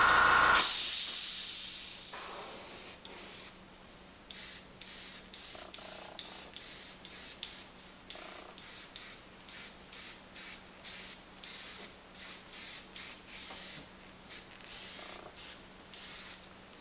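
Air compressor cutting off about half a second in. Then an airbrush hisses out air in one long fading spray, followed by a run of short spray bursts, about two a second, as the trigger is pulsed.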